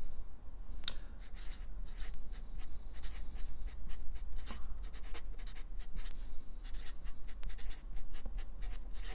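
Marker pen writing words: a quick, uneven run of short scratching strokes as the tip is dragged across the board, letter by letter.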